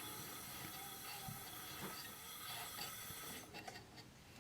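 Faint steady hiss of water running through the toilet's fill valve and supply line, cutting off suddenly about three and a half seconds in as the shutoff valve is closed, with a few faint knocks from the valve being handled.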